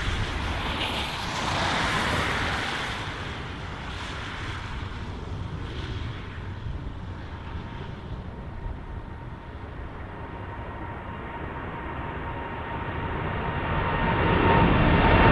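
Boeing 787 twin-jet at take-off power, lifting off a wet runway: a rushing jet roar that eases for a while, then swells again near the end as the climbing airliner comes close, with a steady engine whine rising out of it.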